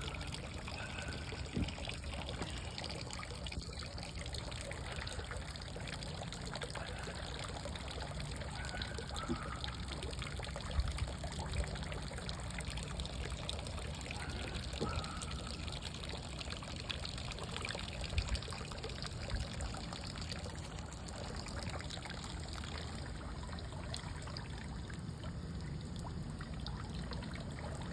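Fresh water running out of the back of a boat, pouring and trickling steadily into the water below.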